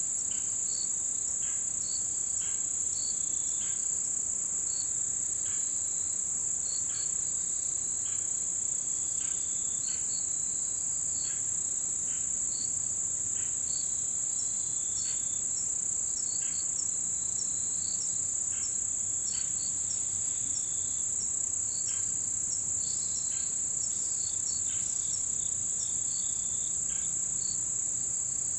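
Autumn insects trilling in chorus: a steady, high-pitched ringing that never breaks, with scattered short chirps over it.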